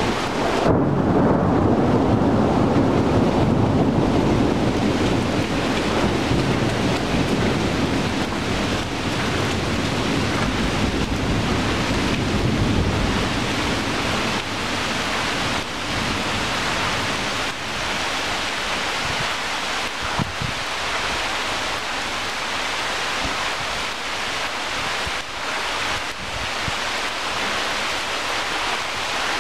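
Steady rain falling through tree leaves. A long low roll of thunder starts about half a second in, is loudest over the next few seconds, and fades out after about twelve seconds.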